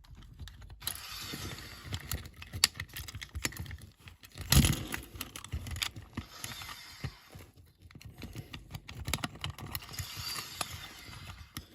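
Metal tool scraping and clicking against a die-cast model car's metal base as it is prised off, with one louder knock about four and a half seconds in.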